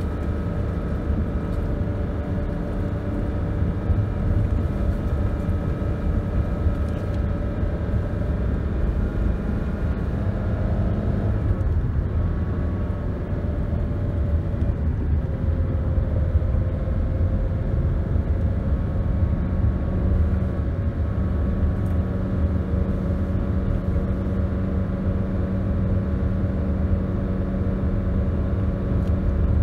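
Car engine and tyre noise heard from inside the moving car, a steady low drone. The engine note shifts about twelve seconds in and settles again a few seconds later.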